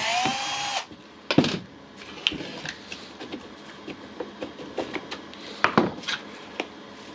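Milwaukee impact wrench's motor spinning briefly on a test run after reassembly, cutting off under a second in, followed by scattered clicks and knocks of the tool being handled.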